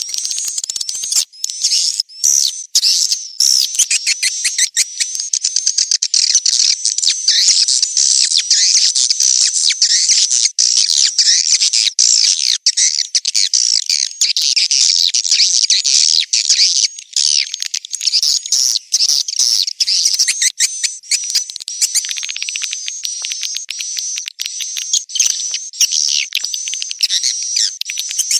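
A swiftlet colony twittering: dense, overlapping high chirps and trills with many rapid clicks, the kind of recorded swiftlet call sound played to lure the birds into a swiftlet house.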